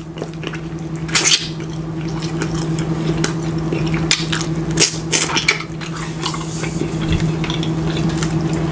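Close-up wet chewing and mouth sounds of a person biting and tearing into sauced chicken on the bone, with irregular smacks and crackles, the loudest about a second in and again around five seconds. A steady low hum runs underneath.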